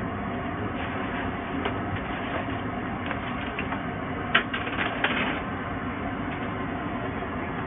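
Steady hum of kitchen machinery. About four and a half seconds in there is a brief clatter of a few sharp knocks, typical of a pan or tray being handled.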